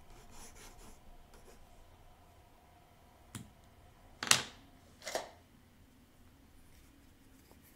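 Water-soluble graphite pencil scratching lightly on sketchbook paper, then three sharp clicks, the loudest about four seconds in.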